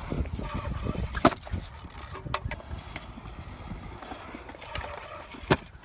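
Stunt scooter wheels rolling over concrete with a low rumble, broken by a few sharp clacks of the scooter hitting the ground, the loudest about a second in.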